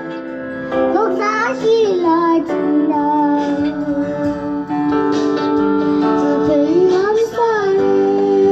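A young boy singing a Tibetan song into a microphone over backing music, holding long notes and bending them with quick ornamental turns.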